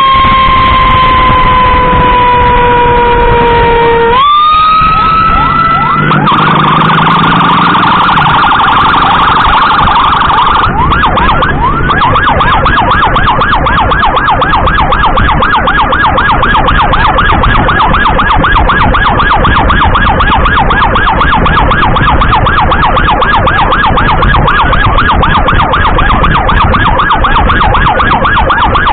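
Loud electronic emergency siren of an ambulance escort. It starts on a slow falling wail, drops out briefly about four seconds in, then switches to a fast warble, and from about eleven seconds on to a rapid repeating yelp.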